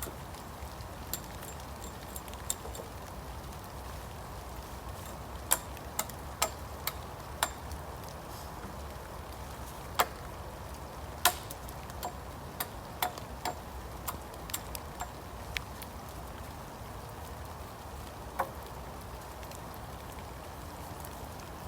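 Steady rain hiss with heavy drops ticking sharply and irregularly, about twenty times, the loudest near the middle.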